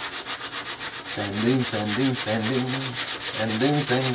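Hand-sanding a small piece of thin wood on a flat sheet of sandpaper, in fast, even back-and-forth scratching strokes. A low hummed tune joins in about a second in.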